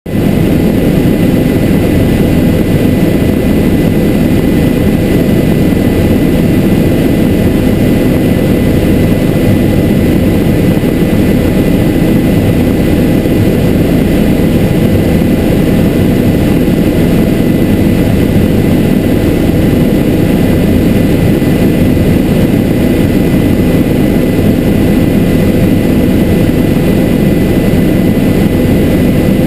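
Bell 407 helicopter in cruise flight, heard from inside the cockpit: a loud, steady drone of its rotor and single turboshaft engine, with a thin, steady high whine over it.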